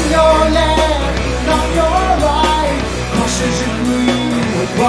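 Progressive rock band playing live: a held low bass note under keyboards and drums, with a gliding lead melody line above.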